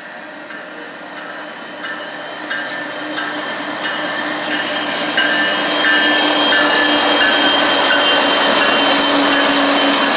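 Freight train led by GE AC4400CW diesel locomotives approaching and passing close by. It grows steadily louder until the lead locomotive goes past about halfway through, then holds at a steady loud level as the locomotives and cars roll by.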